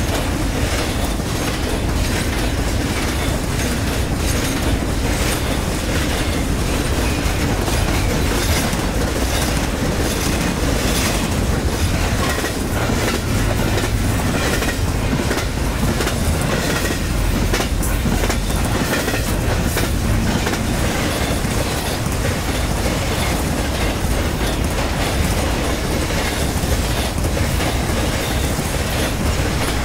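Intermodal freight train's double-stack container cars and trailer flatcars rolling past, a steady rumble of steel wheels on the rails with clickety-clack clicking throughout.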